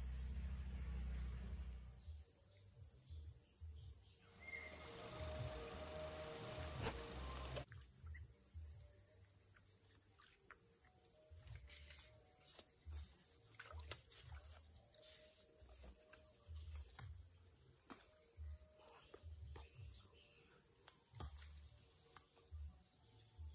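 Insects chirring in a steady high-pitched drone. About four seconds in, a much louder high hiss swells up and cuts off suddenly some three seconds later, with scattered soft low knocks and small rustles throughout.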